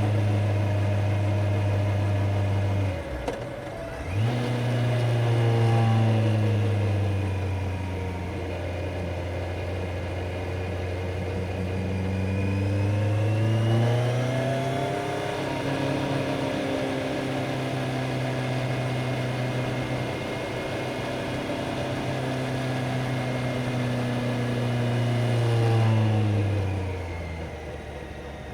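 Kawasaki Z900's inline-four engine and exhaust on the move, running at a steady pitch. About three seconds in the sound dips out briefly and comes back, as with a gear change. The revs rise again around halfway through, hold, and fall away near the end.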